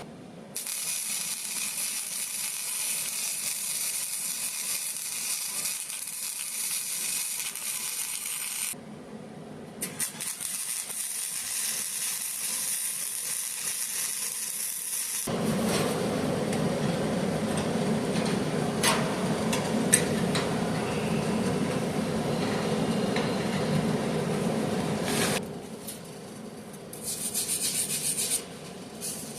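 Angle grinder with a sanding disc grinding steel to clean up spots before welding, in several runs with short pauses about 9 s in and about 26 s in. From about 15 s in the sound turns lower and fuller, with a few sharp ticks.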